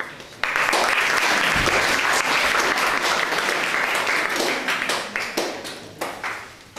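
Audience applauding: the clapping starts suddenly about half a second in, holds loud and dense, then thins out into scattered claps near the end.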